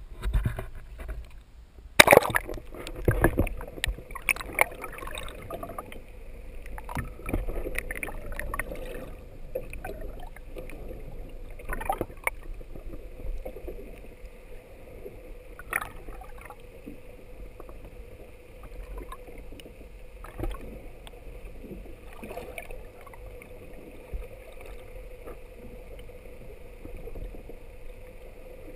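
Waterproof action camera plunging into seawater with a loud splash about two seconds in, followed by irregular sloshing that settles into the muffled wash and gurgle of water heard from under the surface, with a faint steady hum beneath.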